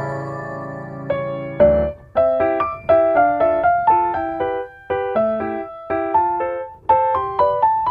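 Background piano music: a quick run of short melodic notes over a few sustained chords.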